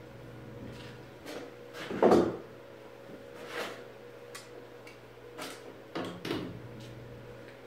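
A few separate knocks and clunks of steel welding gear being handled at a steel post, the loudest about two seconds in, over a steady low hum.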